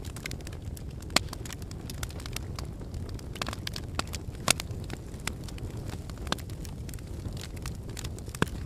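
Wood fire crackling in a fireplace: a steady low rumble of flames with irregular sharp pops and snaps, the loudest about a second in and again about four and a half seconds in.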